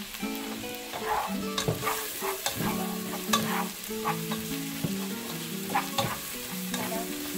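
Chopped onion sizzling as it fries in butter in a nonstick pot, with a spatula stirring it and scraping and clicking against the pan bottom every so often. The onion is being softened until golden.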